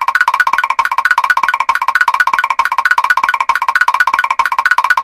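Mr. Krabs' walking sound effect from the SpongeBob SquarePants cartoon, looped and played loud: a fast, even run of high, hollow taps, several a second, without a break.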